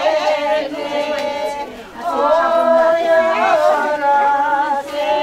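Several voices singing a slow chant together, holding long, slightly wavering notes with a short break about two seconds in.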